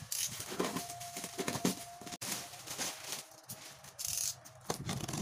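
Clear plastic wrapping rustling and a utility knife scraping and slicing through plastic and packing tape on a cardboard box, in irregular bursts.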